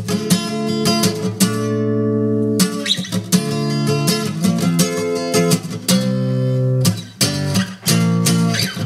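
Acoustic guitar strummed, with some chords left ringing for a second or so between strums.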